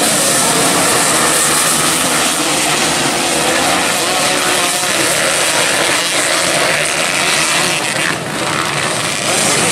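Several grasstrack racing dirt bikes' engines revving hard together, a loud continuous din.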